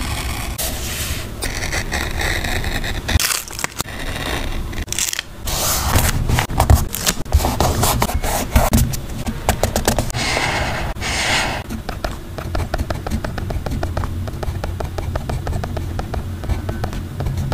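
Close-up handling of stickers and paper for a journal page: continuous scraping, rustling and crinkling with many small clicks and taps, and louder spells of crackling about six to nine seconds in and again around ten to eleven seconds.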